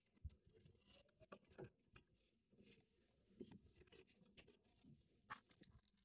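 Near silence, with faint, scattered small clicks and rustles from hands handling wiring and parts inside a gas furnace's cabinet.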